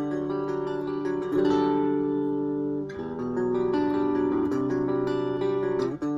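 Ibanez AXS42 guitar, fitted with a vintage tone capacitor, playing held chords that ring on, with a new chord struck about a second in, again around three seconds and near the end.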